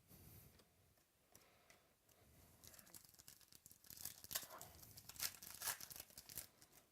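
Plastic-foil trading-card pack wrapper being torn and crinkled open: a run of sharp rips and crackles that thickens about halfway through.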